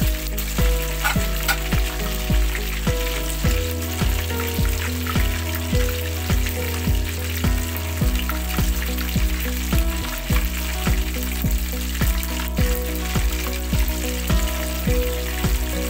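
Tilapia deep-frying in a pan of hot oil, a steady sizzle, over background music with a steady beat.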